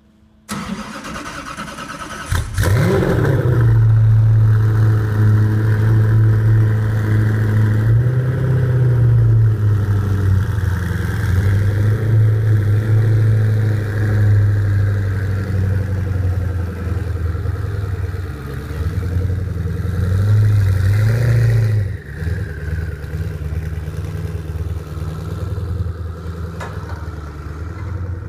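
Koenigsegg One:1's twin-turbo V8 starting: it cranks, catches about two seconds in with a brief rising flare of revs, then settles into a steady fast idle. The revs rise a little twice, and about 22 s in the engine drops to a lower, rougher idle.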